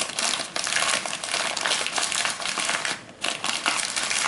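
Newspaper rustling and crinkling as it is folded and handled, with a short pause about three seconds in.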